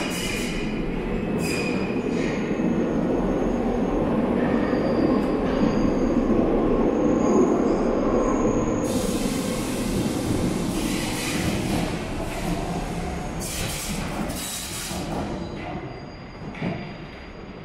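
Paris Métro Line 7 train on the station track, its running rumble building to a peak about halfway through and then dying away. A thin, high wheel squeal runs through it, and bursts of hiss come in the second half.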